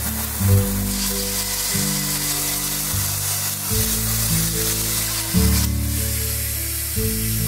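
Background music with held low notes, over a steady hiss of water spraying from a handheld shower head. The hiss changes about a second in and again near six seconds.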